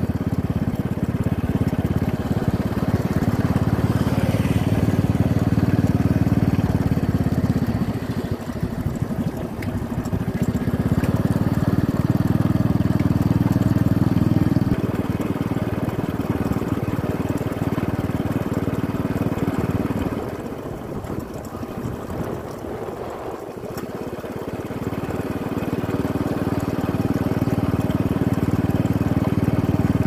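Motorcycle engine running steadily on the move, dropping away twice as the rider eases off and then picking up again.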